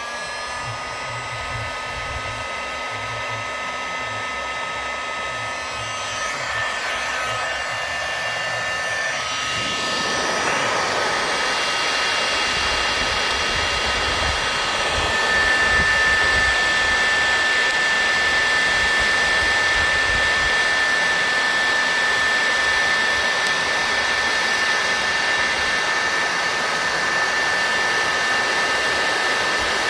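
Bosch hot air gun running: a steady blowing rush from its fan with a high whine over it. It starts up at the beginning, grows louder over the first ten seconds or so, then holds steady.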